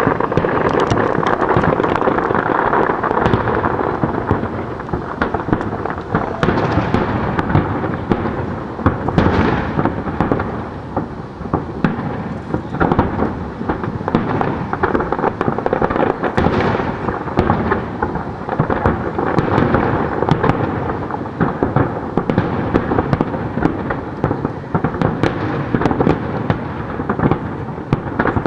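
Aerial fireworks shells bursting in a dense, continuous barrage, the booms and crackles overlapping so closely that they run together, loudest in the first few seconds.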